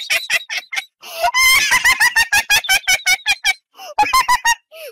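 A man's hearty laughter, a fast run of short "ha-ha" pulses that breaks off briefly about a second in and again near the end.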